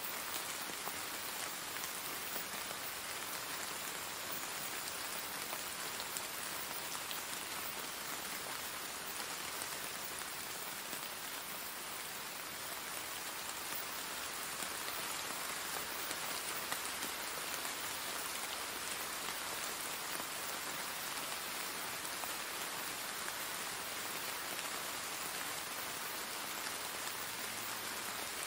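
Steady rain: an even hiss of falling rain with a dense patter of drops.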